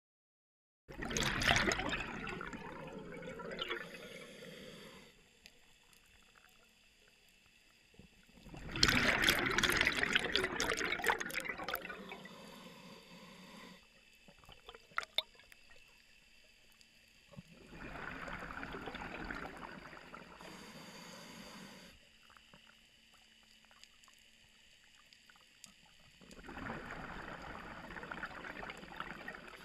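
A scuba diver's exhaled breath bubbling out of the regulator underwater, in four bursts a few seconds long about every eight seconds, with quiet stretches between them while the diver inhales.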